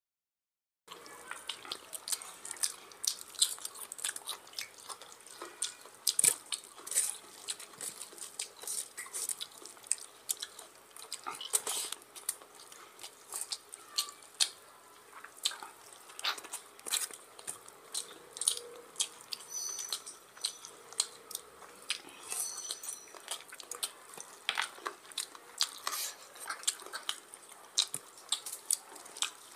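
Eating curry and rice by hand: wet squishing and smacking as fingers mix oily mutton curry into rice, with lip-smacking chewing, a dense run of sharp irregular wet clicks. It begins after about a second of silence.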